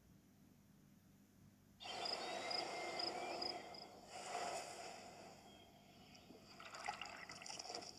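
About two seconds of near silence, then pouring sounds: rolled oats trickling into a steel saucepan, followed by milk pouring from a bottle.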